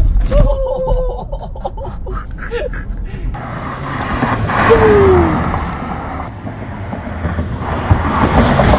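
Ford Everest SUV driving on the road: a low rumble of cabin road noise at first, then, from the roadside, tyre and engine noise that swells to a peak about five seconds in and eases off as the SUV comes on.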